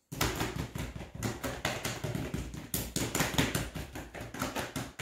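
Two people tapping their breastbones with their hands during a held in-breath, a fast irregular patter of many taps a second.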